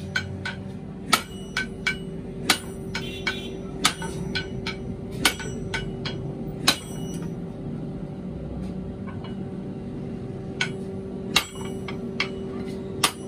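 Hand hammer and sledgehammer forging red-hot iron on an anvil. The loud ringing sledge blows come about every second and a half, with lighter hammer taps between them. The blows pause for about three seconds partway, then resume, over a steady hum.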